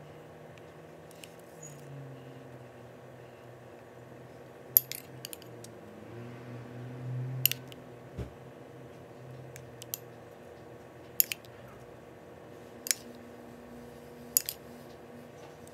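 A metal spoon clinking sharply about eight times at uneven intervals as it scoops and spreads a sticky, syrupy nut filling.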